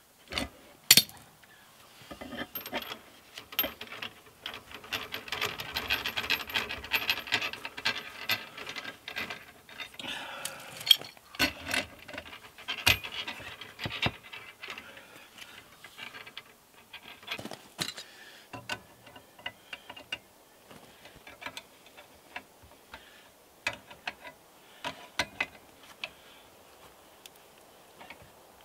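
Pipe wrench working threaded black iron gas pipe fittings: metal-on-metal clicking and scraping as the wrench jaws grip, slip and are reset on the pipe, and the threaded joint is turned tight. A dense run of clicks in the first third, then scattered sharp clanks of steel on steel.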